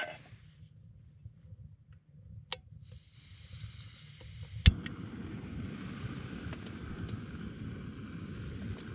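Gas camp stove being lit: gas starts hissing from the burner, an igniter clicks about two seconds later, and the flame catches and burns with a steady rush under the hiss.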